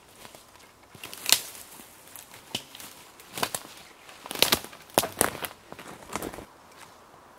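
Boots stepping through dry forest undergrowth, cracking and snapping dead twigs and branches underfoot: a run of irregular sharp snaps, loudest in the middle, that stops near the end.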